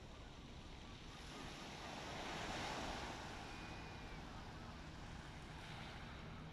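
Small waves washing onto a shingle beach, one wash swelling up about two to three seconds in, with a low rumble of wind on the microphone.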